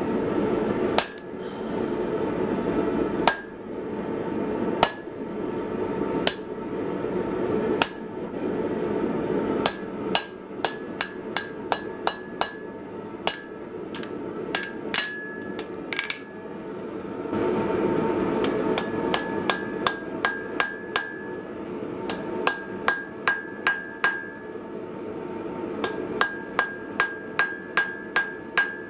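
Blacksmith's hammer striking red-hot steel on an anvil: single blows a second or so apart at first, then quick runs of two to three blows a second, the anvil ringing after the strikes. A steady rushing noise runs underneath.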